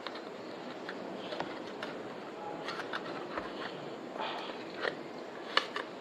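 Light clicks and scrapes of a Kingston SSD and its drive bracket being handled and fitted together, with a couple of sharper clicks near the end.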